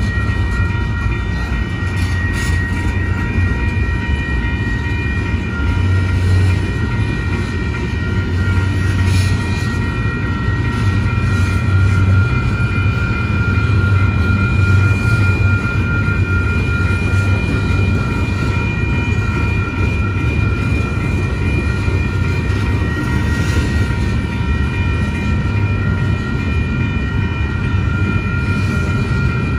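Freight train cars rolling past on a main line: a steady heavy rumble of steel wheels on rail, with a few clanks. Several steady high ringing tones sound over it throughout.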